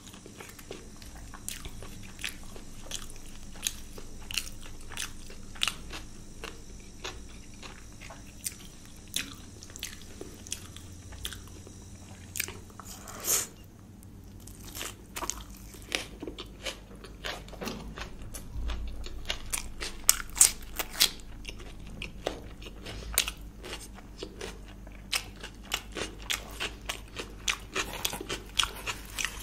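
Close-miked eating: luchi (puffed fried puri) with paneer curry being bitten and chewed, a steady run of irregular short crunches and mouth clicks, with a few louder bites about halfway through and around two-thirds of the way in.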